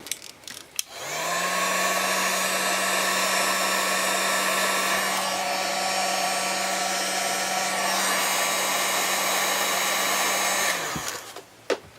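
Heat gun running steadily for about ten seconds, its motor humming up to speed about a second in and cutting off just before the end, used to shrink heat-shrink tubing over a wire. A couple of clicks come just before it starts.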